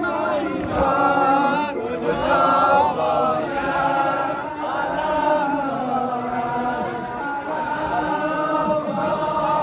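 A group of men chanting a Shia Muharram mourning noha together, their voices rising and falling in a steady melodic line.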